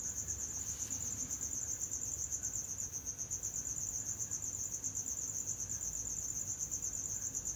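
A cricket trilling steadily at a high pitch, in rapid even pulses.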